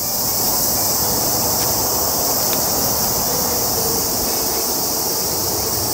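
A steady, high-pitched drone of summer insects, with rustling and crunching of grass and dry leaf litter underfoot as someone walks through undergrowth.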